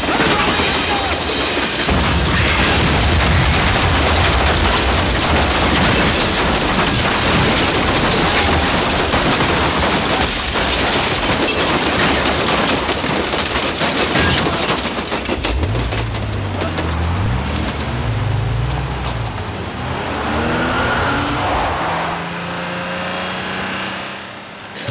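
A train passing close by with loud, dense rattling and clatter of its wagons, which dies down after about fifteen seconds. After that, a few lower sounds rise and fall in pitch.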